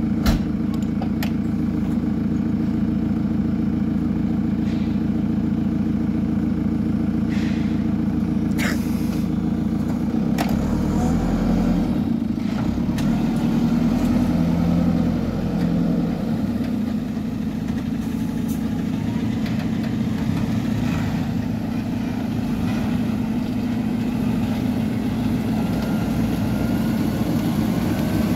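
Diesel engines of a JCB backhoe loader and a Ford Cargo 3232 SD dump truck running steadily at low revs, with the engine note deepening and shifting for a few seconds about ten seconds in.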